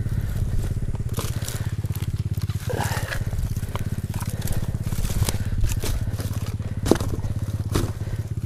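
Boots crunching through dry grass and brush, with several sharp twig snaps. Under it, a dirt bike engine idles steadily.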